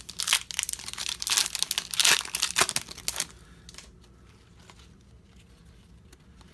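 Hockey card pack being torn open and its foil wrapper crinkled: a dense crackling for about three seconds, then only faint rustling as the cards are handled.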